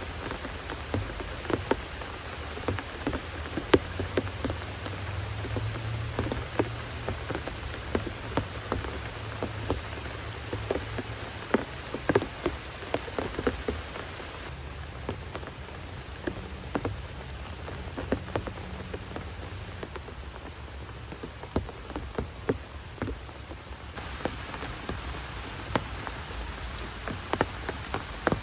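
Steady rain falling, with many sharp close drops pattering throughout.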